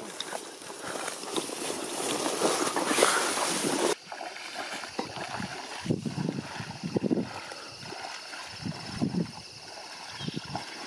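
A loud rushing noise for about four seconds, which stops abruptly. Then waders sloshing through shallow, grassy marsh water: steady wading steps with swishes of wet grass about once a second.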